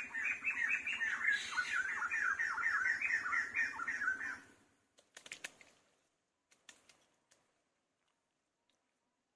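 A rapid series of short, repeated animal calls, about six a second, lasting some four seconds and then stopping; a few faint clicks follow.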